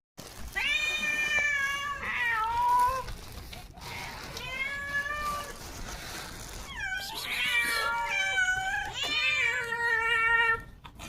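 Cats meowing: four long, drawn-out meows with short pauses between them, some sliding down in pitch at the end.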